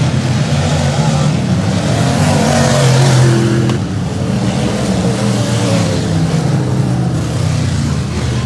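Several dirt-track race cars running hard around a dirt oval, their engines a loud, continuous drone. The sound swells as cars pass close about three seconds in.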